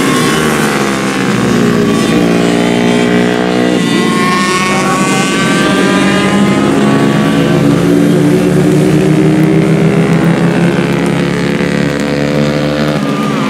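Several racing motorcycles at high revs around a circuit, their engine notes overlapping. The pitch climbs as they accelerate and drops back, over and over.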